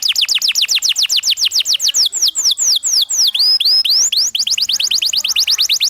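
Domestic canary singing a fast trill of repeated downward-sweeping notes, about ten a second. The notes slow to a few longer swooping phrases about two seconds in, then speed back into a fast trill near the end.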